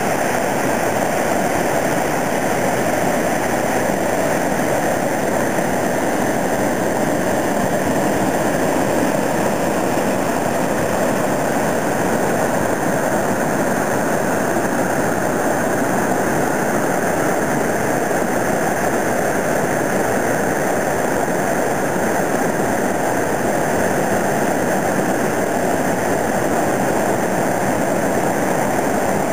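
Waterfall: falling water rushing steadily and loudly, with no change in level.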